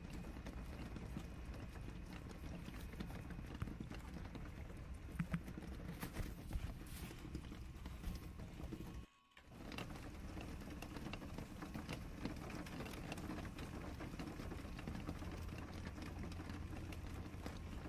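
Scattered light taps and clicks of packaging being handled: a cardboard box opened and a plastic tray of glass vials and packs of needles set down, over a steady low hum. The sound drops out briefly about nine seconds in.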